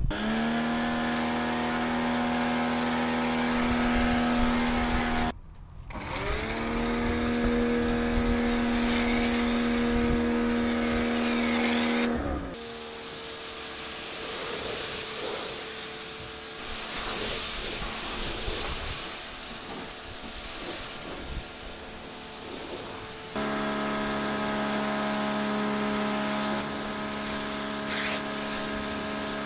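Electric pressure washer motor running in stretches, starting and stopping several times: each start is a whine rising quickly to a steady pitch, and it cuts out abruptly when the trigger is released. Water spray hisses against the car's bodywork.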